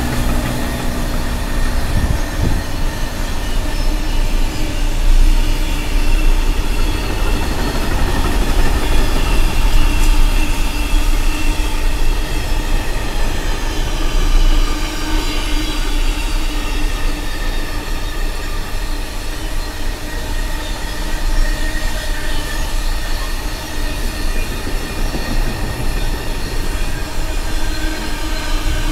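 Loaded container wagons of a long freight train rolling past at speed: a steady rumble and clatter of wheels on rail, with faint high wheel squeal wavering above it at times.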